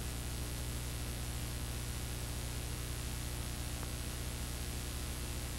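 Steady hiss with a low electrical hum: the noise floor of a blank stretch of analog videotape.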